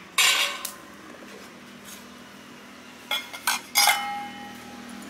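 Stainless steel vessels clanking: a short scrape near the start, a few clinks about three seconds in, then a louder clang that rings on for about a second.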